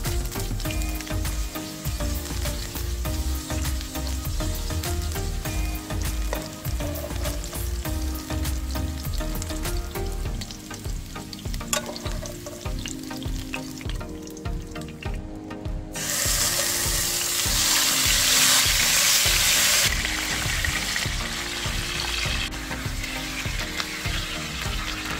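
Oil sizzling in a nonstick frying pan as onion rings sauté, with light clicks of the utensils stirring, then a sudden louder sizzle about two-thirds of the way through as marinated chicken thighs sear. Background music with a steady beat plays underneath.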